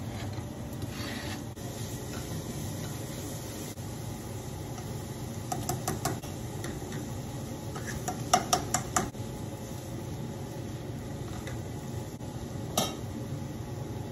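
Cookware clinking against a pot over a steady hiss: a few light clinks, then a quick run of sharp metal taps about eight seconds in as a mesh strainer of red lentils is knocked against the pot's rim, and a single knock near the end.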